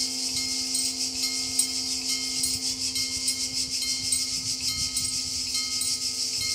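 Level-crossing warning bell ringing in a fast, continuous trill over a steady electric hum, as the crossing barriers lower.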